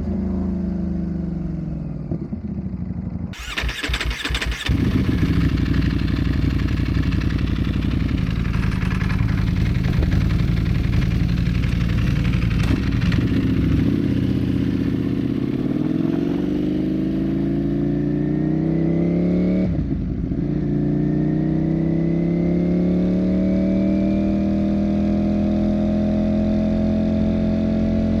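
Ducati Panigale V4 engine under way. It slows down at first, with a brief burst of rushing, crackling noise a few seconds in. Then it pulls up through the revs, breaks briefly at a gear change about twenty seconds in, and climbs again.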